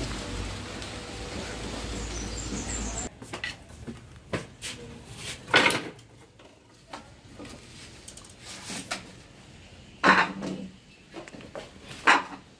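Dry firewood sticks knocking and clattering as they are handled and fed into a wood-fire hearth: a handful of separate wooden knocks a second or more apart. Before that, about three seconds of steady outdoor noise with a low hum.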